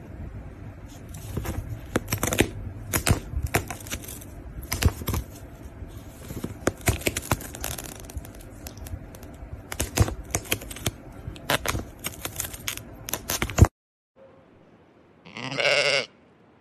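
Kitten chewing and biting the edge of a cardboard box: irregular crisp crackling and clicking. This cuts off suddenly, and near the end a sheep bleats once, about a second long.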